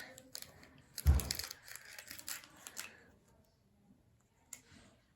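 Foil Pokémon booster pack wrapper crinkling and being opened, with clicky rustling over the first few seconds and a thump about a second in, then mostly quiet.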